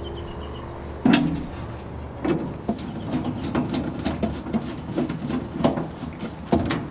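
Irregular light clicks and metallic knocks of metal grill parts being handled and screwed together by hand. A sharp click comes about a second in, then a run of small clicks and taps with a brief ring.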